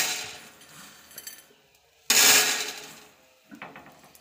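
Dried popcorn kernels poured into a hot, oiled non-stick pot, clattering onto the pan in a sudden rush that fades away. A second handful pours in about two seconds in.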